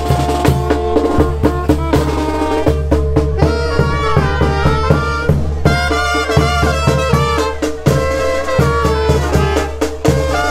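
Band music with brass and drums playing over a steady, pulsing beat.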